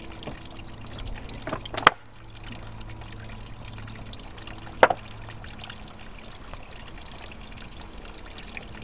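Two sharp knocks about three seconds apart as the wooden blocks and boards of a basket wine press are set in place, over a steady trickle of grape juice draining from the grapes into the press tray.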